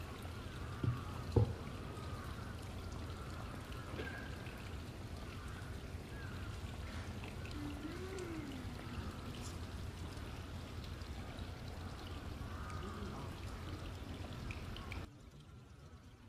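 Steady outdoor background noise with a low hum, two short knocks about a second in and faint high chirps now and then. It drops to a much quieter hush near the end.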